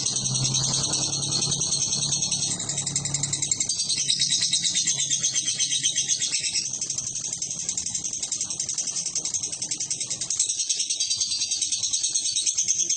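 Fighter lovebird singing one long, very fast, high chattering trill without a break, its pitch shifting a few times.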